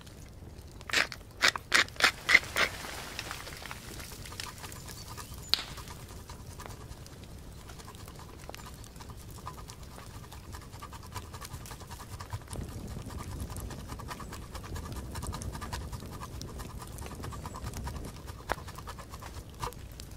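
Pecorino cheese being grated by hand over the steaks. A quick run of about six loud rasping strokes comes about a second in, then a long stretch of softer, rapid rasping strokes.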